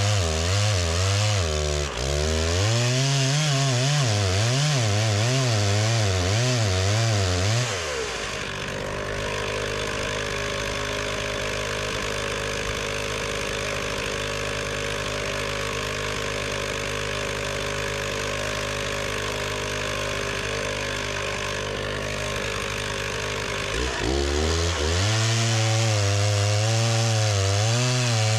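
Stihl 066 two-stroke chainsaw running and cutting wood. Its engine pitch rises and falls for the first several seconds, settles into a steady lower note for about sixteen seconds, then rises and falls again near the end.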